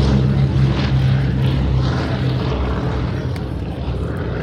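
B-17G Flying Fortress's four Wright R-1820 Cyclone radial engines climbing out after takeoff: a deep, steady multi-engine propeller drone that slowly fades as the bomber draws away.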